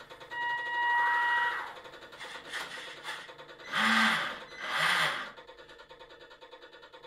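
The scale model boat's electronic sound module playing a ship's diesel engine idling, a steady rhythmic chugging. Over it comes a horn-like steady tone for about a second and a half near the start, then two short loud blasts about a second apart in the middle.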